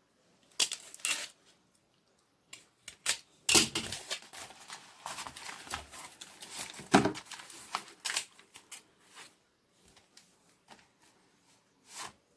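Hands handling packaging and comic books: irregular rustling and crinkling with light taps and clicks, loudest in two bursts, a few seconds in and again about halfway.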